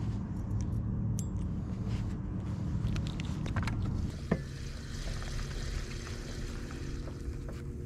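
A spinning reel being handled on a boat: a few light clicks, then one sharp click about four seconds in as the line is cast, over a steady low rumble. After the click the rumble gives way to a quieter, steadier hum.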